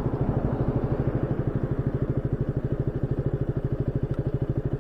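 Motorcycle engine idling with an even, rapid pulse.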